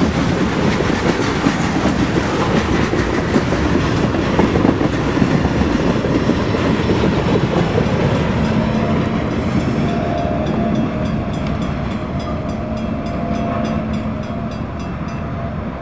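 Freight train tank cars rolling past, steel wheels clicking over rail joints. The noise fades gradually from about ten seconds in as the end of the train moves away.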